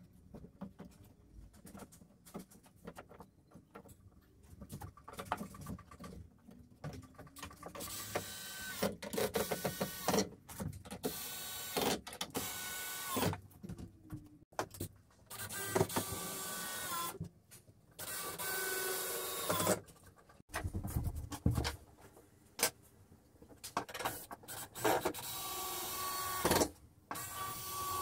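Cordless drill driving screws into a wooden frame brace, in a series of short runs of one to two seconds each from about eight seconds in, several ending with the motor's whine sliding down as the trigger is let go. Before that, quieter clicks and knocks of handling.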